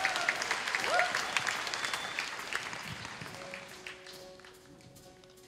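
Audience applauding as a performer walks on, with a short cheer about a second in; the clapping fades out, and soft held instrumental notes begin near the end.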